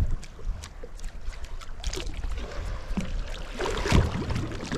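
Water slapping against the hull of a drifting boat, with a steady low rumble and scattered small knocks and clicks; the loudest knock comes about four seconds in.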